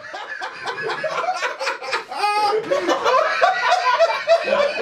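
A group of men laughing hard together: overlapping chuckles and belly laughs, fading in at the start, with one higher, drawn-out laugh about two seconds in.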